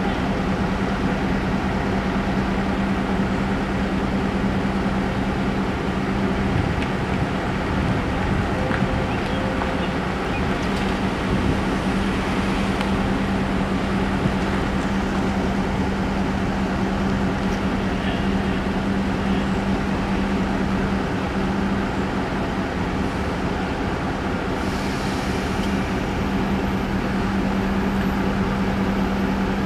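Railroad crossing warning bells ringing steadily while the gates are down, over a constant low hum.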